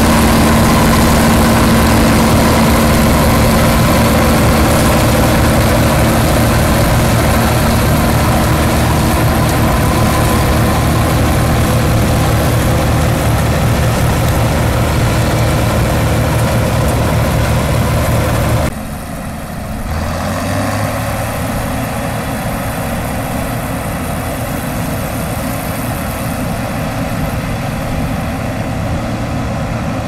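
Bizon Super Z056 combine's SW-400 six-cylinder diesel engine running steadily under load as the combine harvests corn. About 19 seconds in it drops in level and turns duller, then carries on steadily.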